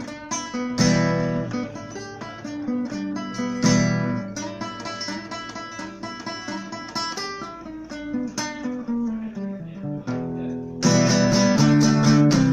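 Nylon-string acoustic guitar played solo: a plucked melodic line broken by louder strummed chords about a second in and again near four seconds, then a louder passage of strummed chords near the end.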